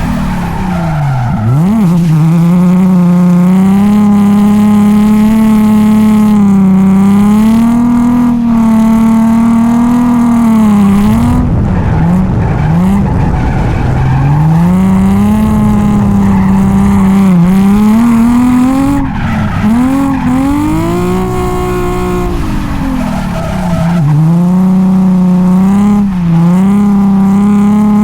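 Drift car's engine run hard at high revs, its pitch swinging up and down again and again as the throttle is worked through a drift, with a few sharp dips and a rough, wavering stretch midway. Tyres skid along with it.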